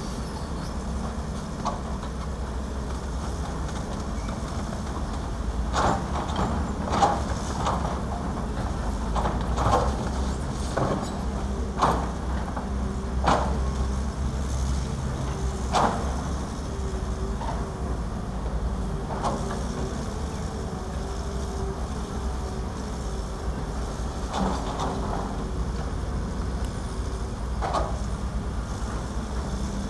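Diesel engines of Caterpillar crawler excavators running steadily, with repeated clanks and knocks as the buckets work rock and rubble, bunched in the middle and a few more near the end.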